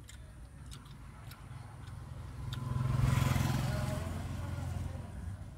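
A motor vehicle passing outside, heard from inside a car: its rumble swells to the loudest point about three seconds in, then fades away. Small clicks of someone chewing run throughout.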